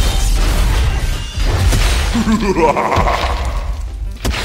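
Crash sound effect: a deep boom with clattering and smashing as a toy room and its plastic building-block wall are knocked apart. About two seconds in, a short pitched, voice-like cry follows.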